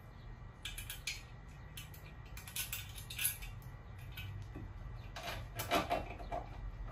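Small metal hardware clinking: washers, a leg screw and a metal furniture leg knocking together in the hands. A few light clicks at first, then a louder cluster of clinks and scrapes about five seconds in.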